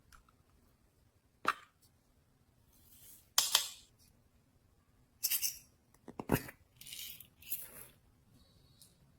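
Slime being handled and mixed, giving short clicky, crackly bursts spaced a second or so apart, with quiet in between.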